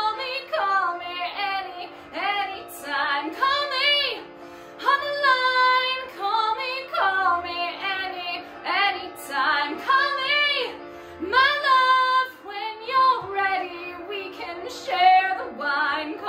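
A woman singing a melody in short phrases, with pitch bends on the held notes.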